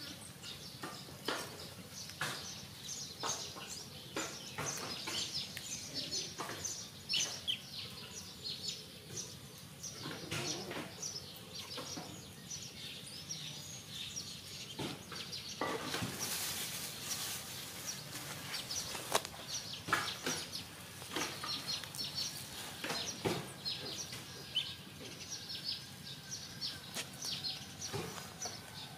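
Small birds chirping on and off, many short high calls, with scattered short clicks and taps among them.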